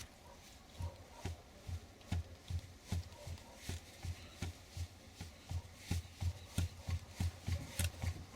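Worn front shock absorber from a GAZelle van knocking dully, about two to three knocks a second, as its rod shifts in the worn body. The play between rod and body is the typical source of the dull knock that is usually blamed on worn kingpins.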